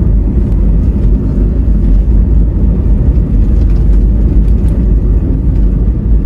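Steady low rumble of a car driving, its engine and tyres heard from inside the cabin.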